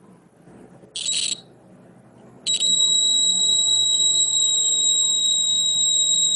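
5V DC buzzer of a homemade fire alarm: a brief buzz about a second in, then from about two and a half seconds a steady high-pitched tone. It sounds because the tube light starter, heated by a flame, has closed the circuit.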